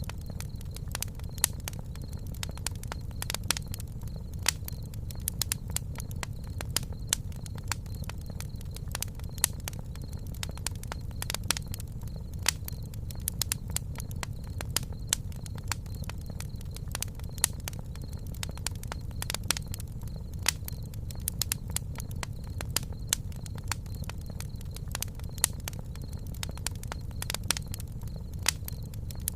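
Campfire crackling: irregular sharp pops and snaps, a few louder than the rest, over a steady low rumble.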